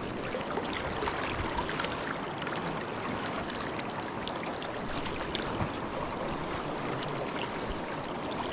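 Swift river current rushing steadily past, with a few faint ticks scattered through it.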